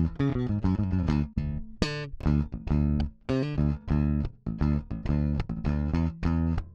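Solo electric bass guitar line of short plucked notes with brief gaps between them, played back through a Midas 522 500-series compressor.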